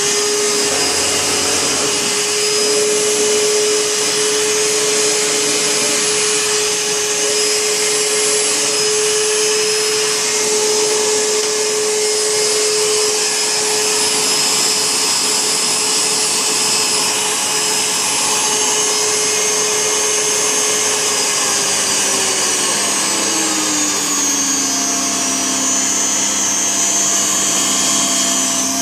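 Panasonic MC-E451 upright vacuum cleaner running on max, its motor just spun up to a steady, loud whine with a hiss of airflow. About 23 seconds in, the pitch drops noticeably and a second, higher tone joins it. The owner afterwards puts the machine's trouble down to a stretched brushroll belt.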